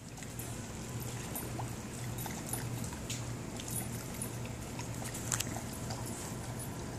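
Soft water sounds of a dog paddling through a swimming pool, over a steady low hum.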